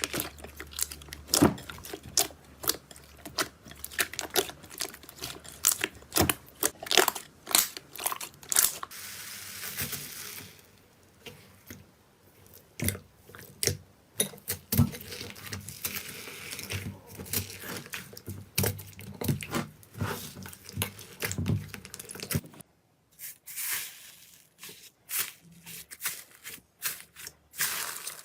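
Slime being squeezed, poked and stretched by hand, giving rapid crackling clicks and pops from air trapped in it, with a softer stretch of sticky hissing and a short pause partway through.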